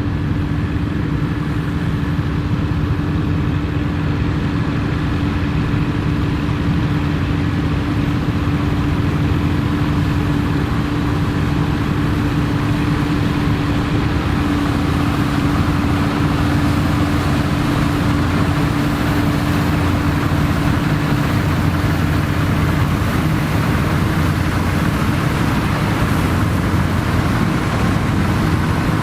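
Dronningborg D2600 combine harvester running while harvesting barley: its engine and threshing machinery give a steady hum over a rushing noise that grows a little louder in the second half.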